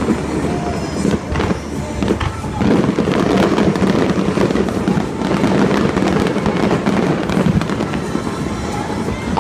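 Fireworks display going off in a rapid, unbroken run of bangs and crackles, with music playing alongside.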